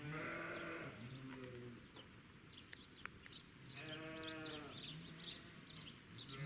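Two long, drawn-out animal calls like livestock bleating, one at the start and one about four seconds in, with small birds chirping in the background.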